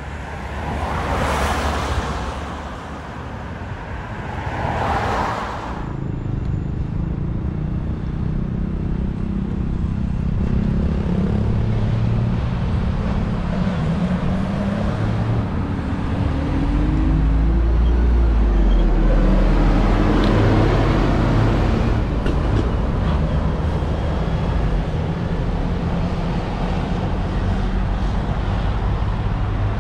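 Road traffic: two vehicles pass in the first few seconds. Motor engines then run close by, changing in pitch, with a deep rumble from about halfway through.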